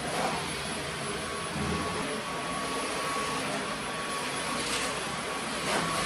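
Dyson cordless stick vacuum cleaner running steadily as it is pushed across the floor: a constant rush of air with a thin steady whine over it.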